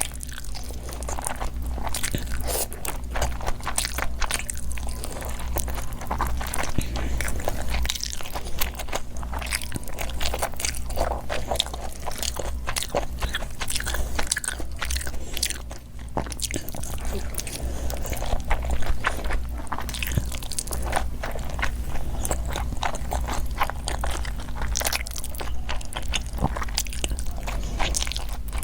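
Close-miked mukbang eating: continuous chewing and biting with many small, crunchy clicks, over a low steady hum.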